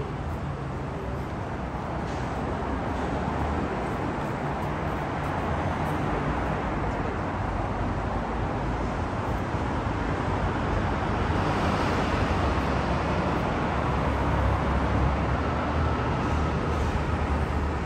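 Road traffic on a busy city street: a steady rumble of engines and tyres that grows somewhat louder in the second half as vehicles pass close by.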